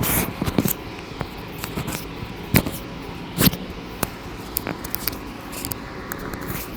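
Scattered light clicks and rustles from hands-on handling, over a steady background hiss, with two sharper clicks about two and a half and three and a half seconds in.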